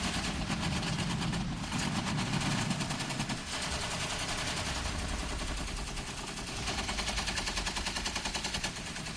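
Sustained rapid automatic gunfire: machine guns firing in long, unbroken strings of shots over a low rumble.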